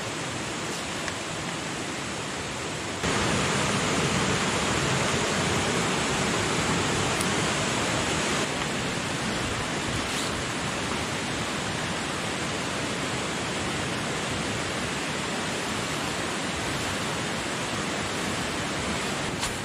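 River water rushing, a steady noise that steps up louder about three seconds in and then holds even.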